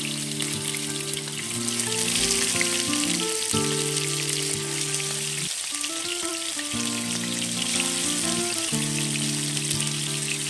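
Fish frying in hot oil: a steady sizzle full of fine crackles. Background music of held chords plays underneath.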